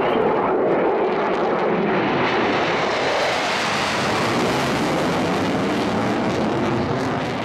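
Jet noise from a Sukhoi Su-22M4's AL-21F-3 turbojet during a low banking display pass: a loud, steady rush that turns brighter and more hissing about halfway through as the jet comes nearer.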